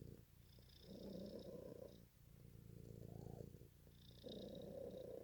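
Domestic cat purring faintly and steadily, the purr swelling and easing with each breath, about three swells in the stretch.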